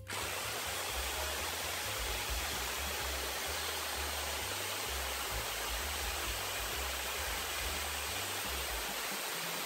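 Corded hammer drill with a masonry bit running steadily, boring into brick through a pilot hole in a wooden furring strip; the drilling starts abruptly at the outset.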